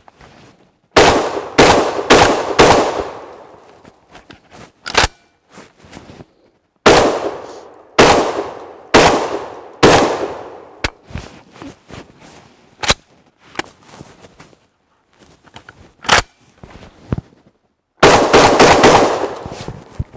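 SRM 1216 semi-automatic 12-gauge shotgun fired in quick strings: four shots in about two seconds, four more a few seconds later, and another rapid string near the end. In the pauses come single sharp clacks as the rotary magazine cylinder is turned to the next four-shell tube and the bolt closes.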